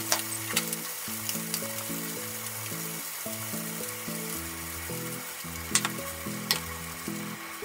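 Salted mackerel fillets sizzling in a frying pan with a steady hiss. A few sharp clicks come just after the start and twice around six seconds in, over light background music.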